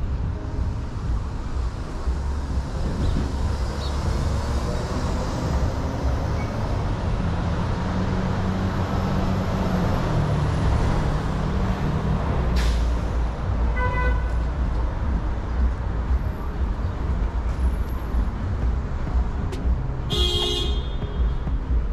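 Steady city street traffic noise with a low rumble, and a vehicle horn sounding: a short toot about two-thirds of the way in and a longer, louder honk near the end.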